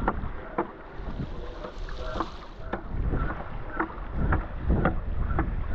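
Water splashing against a foiling SUP paddle and board, with a run of short sharp splashes, about two a second in the second half, over steady wind buffeting the microphone.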